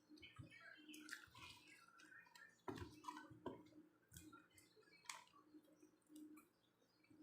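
Close-miked chewing of french fries: soft, wet mouth clicks and squishes, with a few sharper clicks in the middle.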